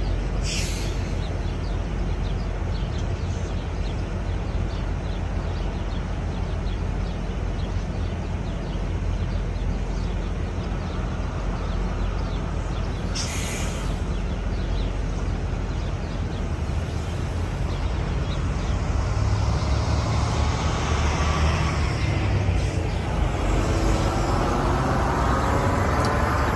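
Steady low rumble of idling diesel semi trucks, with a brief hiss about 13 seconds in. From about 19 seconds a semi truck's diesel engine grows louder as the truck drives up and pulls past close by.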